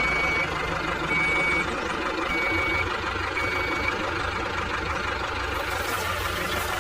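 A vehicle's reversing alarm beeping four times, evenly spaced about a second apart, over a steady engine hum.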